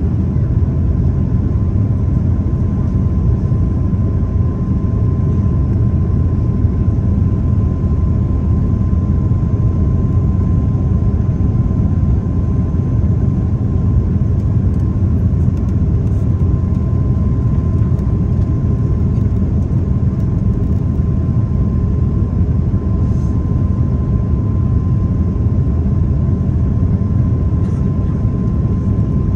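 Airliner cabin noise: a steady low roar of the engines and rushing air, with a thin steady whine running through it.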